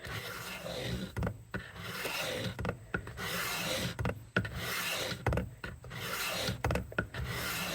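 Knife blade being drawn over the wet fine diamond stone of a Work Sharp guided sharpening system: a repeated rasping scrape, about five strokes of a second or so each with short pauses between.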